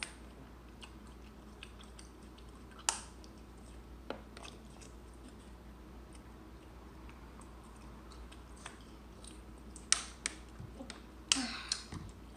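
Faint chewing and mouth sounds of someone eating rambutan fruit, with scattered small clicks. A sharp click comes about three seconds in, and a cluster of louder clicks and a short rustle near the end.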